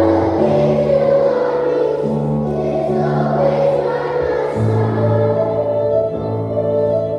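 A choir singing a hymn over slow, held keyboard chords.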